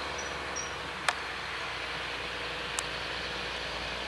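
Claas Xerion 3300 tractor running steadily under load as it pulls a Köckerling cultivator through the ground, with two short sharp clicks, about a second in and near three seconds in.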